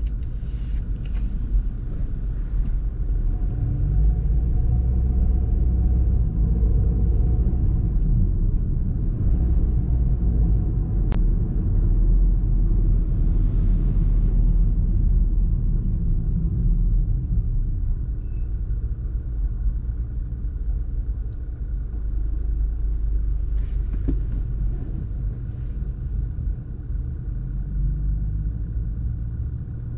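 A car driving on city streets: a steady low rumble of road and engine noise.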